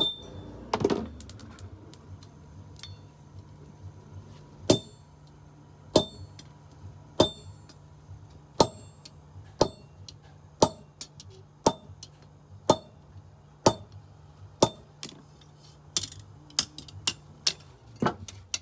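Hammer blows on metal, each with a short bright ring, about one a second, coming quicker near the end.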